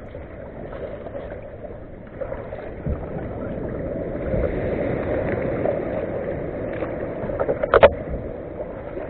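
Water splashing and rushing around a sit-on-top fishing kayak and its paddle as it is paddled steadily out. The rushing grows louder a couple of seconds in and eases again, with one short sharp knock near the end.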